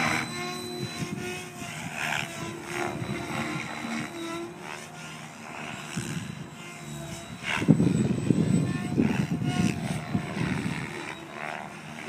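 Mikado Logo 600 electric radio-controlled helicopter flying aerobatics at a distance: the whine of its motor and rotor blades, sliding up and down in pitch as it manoeuvres, with a louder rushing stretch about seven and a half seconds in.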